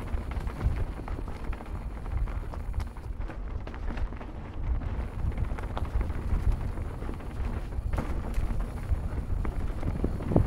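Wind rumbling on the camera microphone of a mountain bike riding fast down dirt singletrack, with the tyres rolling on the dirt and light rattles from the bike over the bumps. A sharper knock comes near the end.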